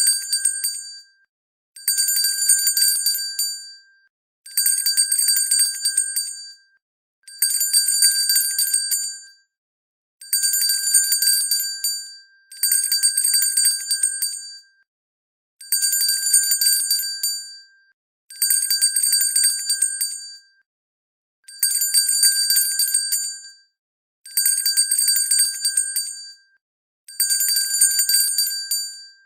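Hand bell rung with quick, rapid strokes in repeated bursts of about two seconds, each fading out before a short pause, about ten bursts in a row.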